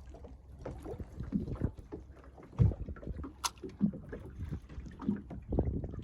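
Knocks and bumps in a small aluminium boat over wind rumble on the microphone, with one heavier thump about two and a half seconds in and a sharp click about a second later.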